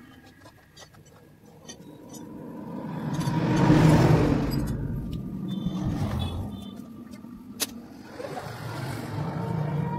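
A motor vehicle passing by, its noise swelling to a peak about four seconds in and then fading, with a few light metallic clicks, one sharp click about three seconds later.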